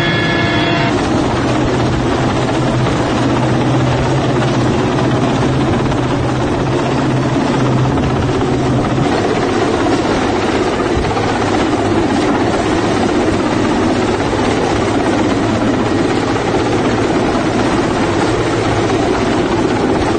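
Helicopter rotors and engine running close by: a loud, steady wash of noise with a low hum that drops away about nine seconds in. A higher pitched tone cuts off about a second in.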